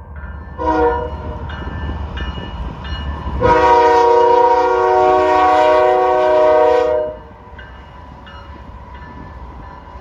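A BNSF freight locomotive's Nathan K5HL five-chime air horn sounds a short blast, then a long blast of about three and a half seconds, over the low rumble of diesel locomotives passing close by.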